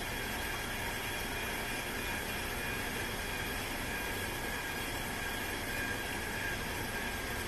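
KitchenAid stand mixer motor running steadily, driving the KSMMGA metal food grinder attachment as it grinds raw chuck eye beef: a constant hum with a steady high whine.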